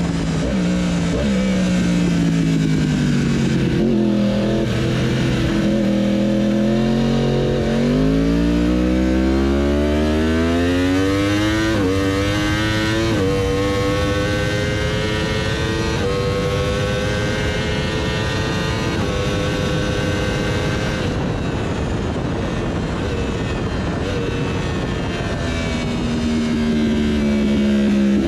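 Yamaha YZF-R1M's crossplane inline-four, catless through a titanium link pipe with a modified stock silencer, heard onboard at speed with wind rush. The revs fall at first, then climb hard under full throttle from about a third in, dropping in pitch at each of several quick upshifts, before the throttle closes, the revs fall and a downshift lifts them again near the end.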